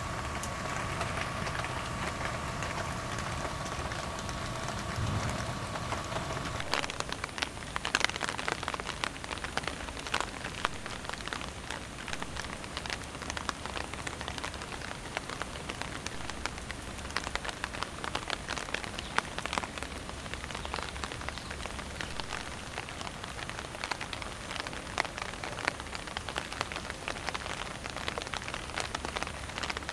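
Rain pattering, with many sharp drop ticks close by. For the first several seconds a steady hum runs underneath; it cuts off suddenly about seven seconds in.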